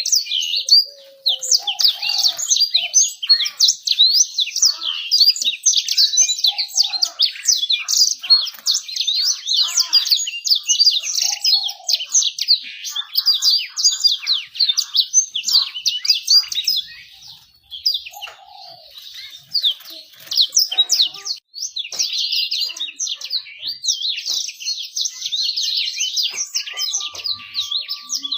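Canary singing a long, continuous song of fast trills and chirps with hardly a break.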